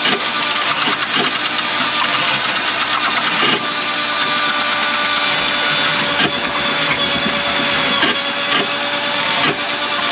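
Electric drain-cleaning machine running steadily, with irregular knocks and rattles, working on a kitchen drain line clogged with grease.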